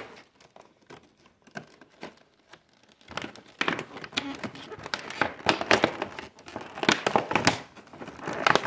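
Clear plastic clamshell packaging being pulled open and handled, crinkling and crackling. A few faint clicks come first, and it gets much busier and louder about three seconds in.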